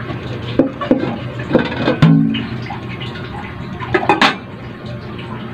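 Pork broth boiling in an aluminium wok, with a clatter of the wok's metal lid being handled about four seconds in.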